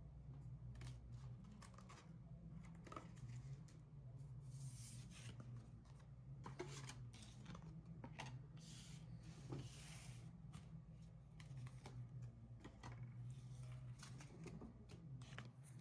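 Faint rustling and light clicks of trading cards being handled, with a couple of longer sliding rustles, over a low steady hum.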